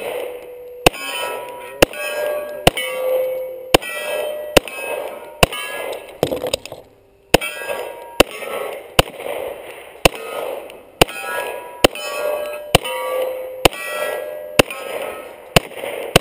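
Pistol shots fired at a steady pace of about one a second, each followed by the ringing clang of a hit steel target. There is a short pause about seven seconds in before the firing resumes.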